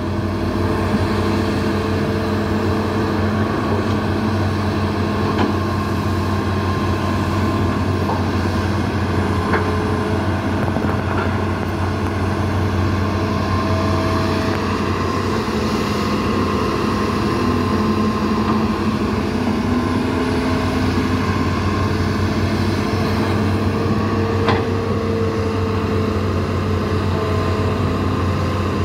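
Diesel engines of hydraulic excavators running steadily as they dig, with a few short sharp knocks.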